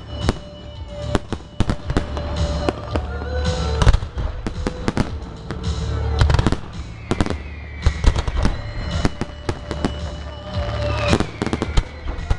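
Aerial firework shells bursting in quick succession: a dense run of bangs and crackles over a steady low rumble.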